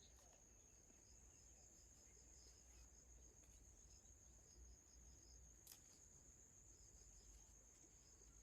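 Near silence: faint outdoor ambience with a steady high-pitched insect trill and a faint click about six seconds in.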